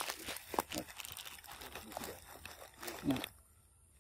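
Crackly rustling and crunching, stopping abruptly a little over three seconds in.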